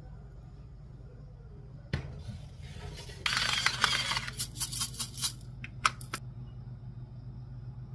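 A knock about two seconds in, then a stainless steel seasoning grinder worked over a steel pot: a second of gritty grinding and rattling, followed by a run of sharp clicks and taps. A low steady hum runs underneath.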